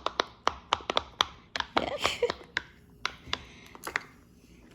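Fidget toy making a quick run of sharp, irregular clicks, about three or four a second, thinning out near the end.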